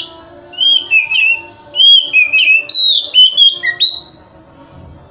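Oriental magpie-robin (kacer) singing a loud run of clear whistled notes that slide up and down, stopping about four seconds in.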